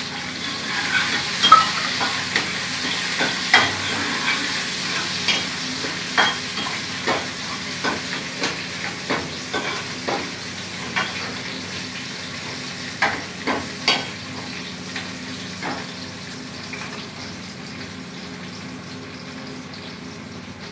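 Potatoes and onions sizzling as they fry in ghee in a steel pot, with a metal ladle scraping and knocking against the pot as they are stirred. The knocks come roughly every half second until about sixteen seconds in, after which only the sizzle goes on.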